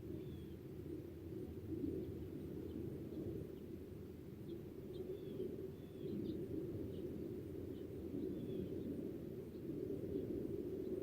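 Small birds chirping faintly and intermittently over a steady low rumble.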